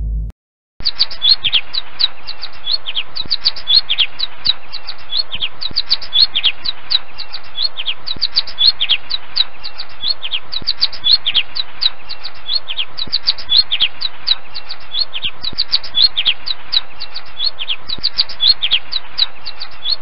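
Finch singing a continuous high twittering made of many short, quick, falling chirps, several a second. It starts about a second in and cuts off abruptly at the end.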